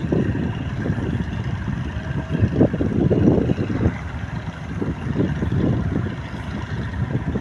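Low rumble of a boat under way, with wind buffeting the microphone in irregular gusts.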